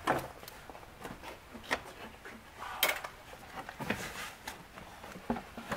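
Polaris Ranger's plastic air box being wiggled and pulled at by hand, knocking and scraping against the metal frame. There are a few sharp knocks with rubbing and handling noise between them.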